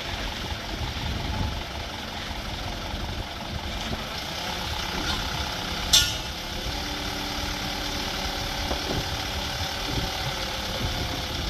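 A vehicle engine running steadily, with a single sharp click about six seconds in.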